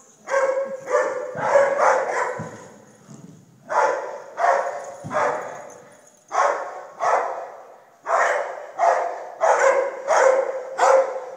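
A dog barking over and over: about fourteen sharp barks, coming in runs of two to five with short pauses between the runs.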